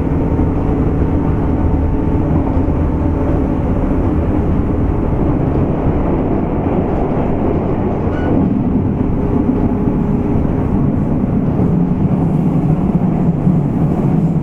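Running sound of a JR West 201 series chopper-controlled electric train, heard from aboard motor car MoHa 200-247: a steady rumble of wheels on rail mixed with several steady tones from the drive.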